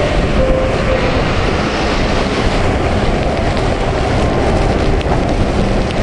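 Storm-driven bay water surging and crashing over rocks around a dock, with strong wind buffeting the microphone: a steady, heavy roar.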